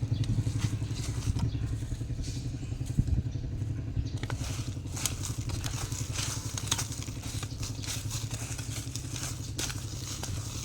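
A small engine running steadily with a fast even pulse, with scattered light clicks and scrapes over it.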